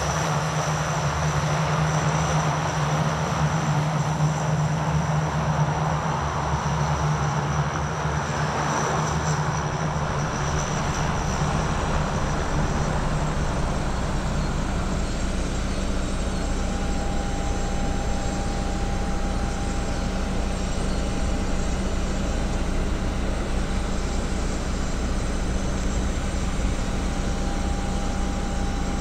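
Antonov An-26's twin turboprop engines running with a steady drone. About ten seconds in the sound shifts to a lower, steadier rumble, and a thin whine joins it a few seconds later.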